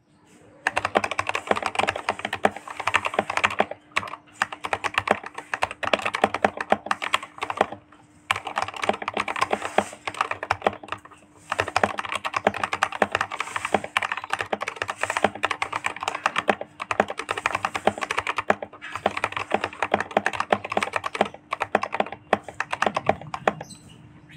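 Typing test on a modded Daxa M71 Pro mechanical keyboard fitted with Krytox-lubed NovelKeys Cream linear switches and lubed Durock plate-mounted stabilizers. It gives fast, continuous keystrokes with a few brief pauses, over a faint steady hum.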